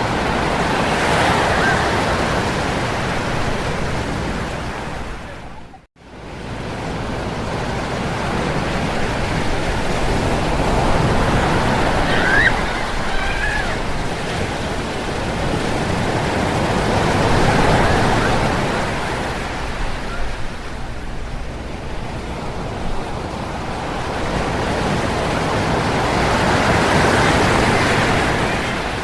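Ocean surf breaking on a beach, the wash swelling and easing in slow waves every several seconds. About six seconds in the sound briefly fades out and comes straight back.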